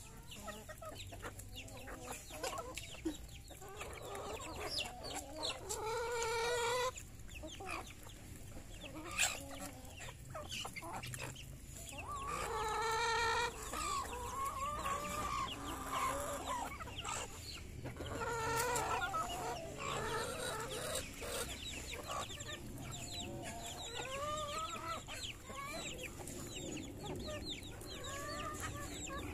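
Flock of hens clucking as they peck at feed, with chicks peeping in many short high notes. Louder drawn-out hen calls come about six, twelve and eighteen seconds in, and there is one sharp tap about nine seconds in.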